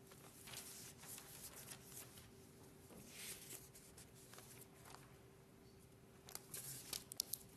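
Near silence in a room with a steady faint hum, broken by soft paper rustling and a few small clicks near the end.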